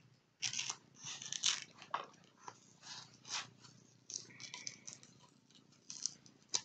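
A knife and its sheath being handled close to the microphone: an irregular run of short scrapes, rustles and small clicks starting about half a second in, with a brief squeak a little past four seconds in.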